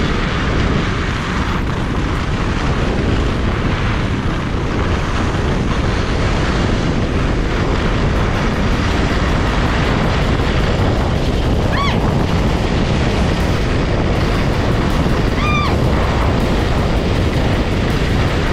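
Loud steady rush of wind buffeting the microphone together with skis sliding over snow on a fast downhill run. Two short high chirps break through, about twelve and fifteen seconds in.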